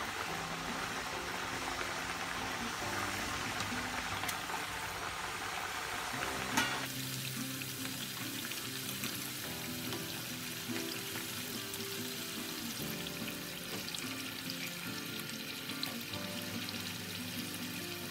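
Murukku deep-frying in coconut oil, a dense sizzle that is strong at first and drops to a weaker sizzle after a sharp click about seven seconds in. Background music plays throughout.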